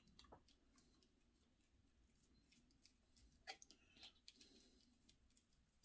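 Near silence broken by a few faint small clicks and taps from handling the toggle switch and its wires, once near the start and a small cluster around the middle.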